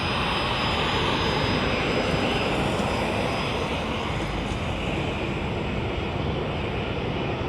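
Boeing 727-200's Pratt & Whitney JT8D jet engines running loud and steady as the airliner lands, with a thin high whine that fades out about halfway.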